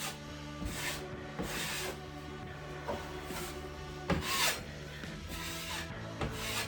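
Metal drywall knife scraping across the wall as spackling compound is skimmed on, in repeated strokes about a second apart, the loudest about four seconds in. Background music plays underneath.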